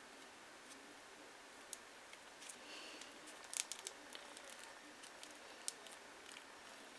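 Faint crinkling and light clicks from hands handling a papier-mâché armature of wrapped paper and tape, with a quick cluster of sharper clicks about halfway through.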